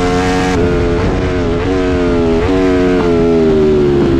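Onboard sound of a Ducati Panigale V4's V4 engine running hard on track, its pitch held high with a few short dips and jumps, then sinking slowly over the last second as the revs ease off.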